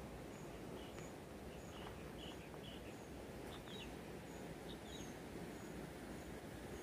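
Faint small-bird chirps, short high notes coming singly and in little pairs every second or so, over a low steady outdoor hiss, with a fainter very high peep repeating about every half second.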